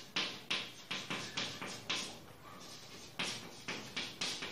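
Chalk writing on a blackboard: a quick run of short, scratchy strokes and taps as letters are written, with a brief lull just after the middle.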